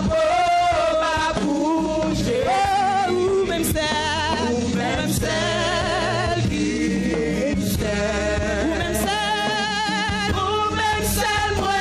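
Gospel worship song: a woman's lead voice sung with wide vibrato, backed by other singers and instrumental accompaniment with a steady low bass.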